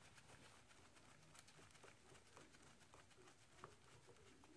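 Near silence, with a few faint ticks from a screwdriver tightening the float bowl screws on a carburetor.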